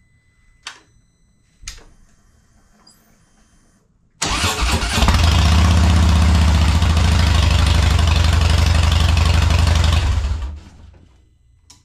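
A couple of clicks, then about four seconds in a Harley-Davidson Softail's V-twin engine cranks and fires up. It idles steadily for about five seconds, run briefly so the oil circulates through its dry-sump system before the oil level is checked, then is switched off near the end and dies away.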